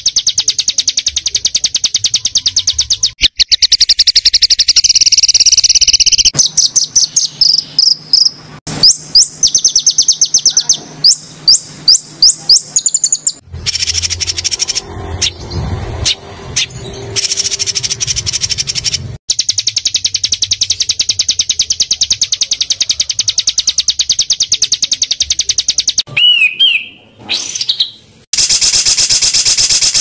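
Small songbirds singing fast, dense trills and chattering runs of rapid notes, the kind of packed 'tembakan' song used to tutor caged songbirds. The song changes abruptly every few seconds where separate recordings are spliced together, and a short rising-and-falling whistle comes near the end.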